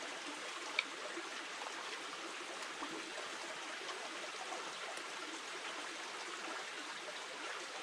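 A stream running steadily, an even rush of water, with a single short click just under a second in.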